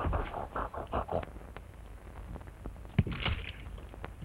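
Gorilla grunting in a fast string of short, breathy huffs, about four a second, stopping a little over a second in. About three seconds in comes a sharp knock, then another short burst of huffing.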